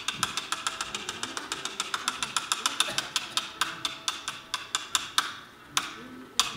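Fast, even percussive clicking, about six strokes a second, each with a short ringing pitch, which stops about five seconds in; two single sharp knocks follow near the end.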